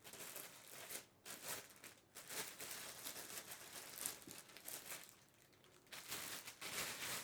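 Packaging crinkling and rustling in irregular bursts as a power tool is unpacked from its box, easing off briefly about five seconds in.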